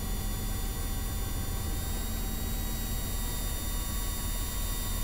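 Steady low rumble and hiss of a Robinson R44 helicopter in flight heard from inside the cockpit, with a constant electrical hum and thin steady whines over it.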